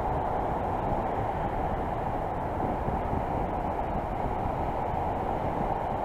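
Steady rush of airflow over the camera microphone of a paraglider in flight. The wind noise is even and dull, with little high hiss, and there are no separate knocks or tones.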